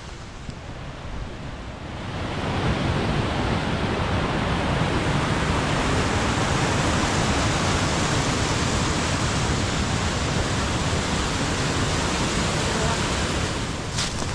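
Waterfall rushing in a steady roar that grows louder about two seconds in, with a few clicks near the end.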